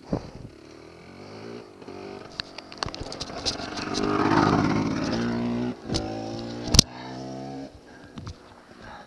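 GasGas enduro dirt bike engine running at a steady idle while the bike is handled, with a louder noisy surge about four seconds in and sharp knocks around six and seven seconds.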